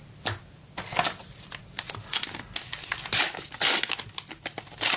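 Crinkling and tearing of a trading-card pack wrapper being opened, with cards being handled: a run of short crackles, loudest about three to four seconds in.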